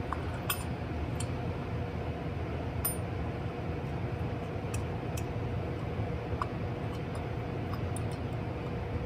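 Sparse light clicks and clinks of metal carburetor parts as the two halves of a Marvel-Schebler TSX422 carburetor are handled and fitted together, over a steady low hum.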